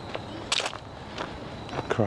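Footsteps of a person walking at a steady pace, about one step every half to two-thirds of a second, the sharpest step about half a second in.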